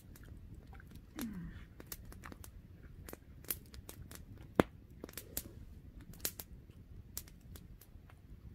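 Wood campfire crackling: scattered irregular pops and snaps, with one sharp, much louder pop about halfway through.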